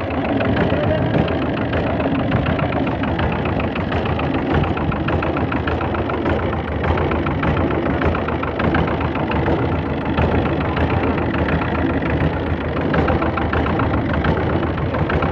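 Fishing boat's engine running steadily while trolling, with a rapid even beat.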